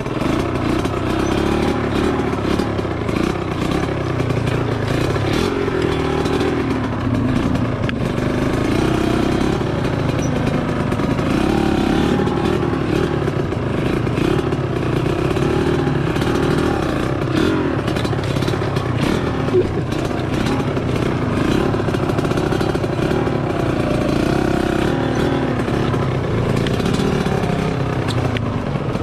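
A homemade mini jeep's motorcycle engine running under way on a rough trail, its pitch rising and falling with the throttle.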